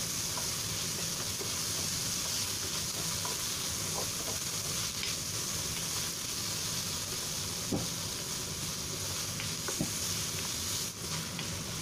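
Pork strips frying in a nonstick wok with a steady sizzle, being browned. A wooden spatula stirs them, knocking and scraping against the pan a few times.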